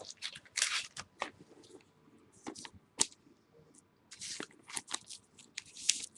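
Trading cards being handled in clear plastic sleeves and top loaders: irregular crinkling and rustling with sharp plastic clicks, loudest about three seconds in and again near the end.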